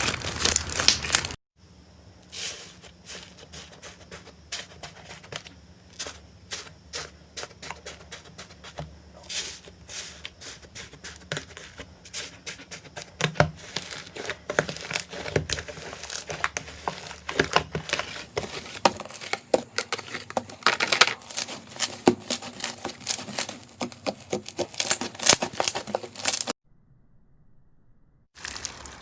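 Slime being squished and stretched, making dense sticky crackles and pops, with a short pause near the end.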